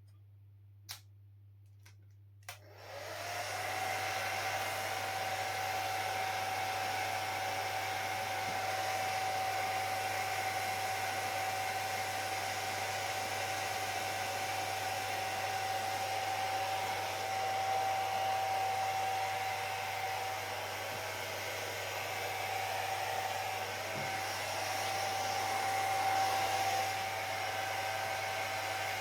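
Hair dryer clicking on about two and a half seconds in, spinning up within a second, then blowing steadily on wet hair, its rushing air and motor whine swelling slightly now and then.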